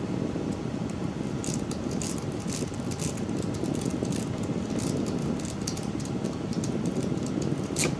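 Quick, irregular light metallic clicks and scrapes of a rake pick worked in and out of a knob lock's wafer cylinder under tension, testing it for pick resistance, with one sharper click near the end. A steady low hum runs underneath.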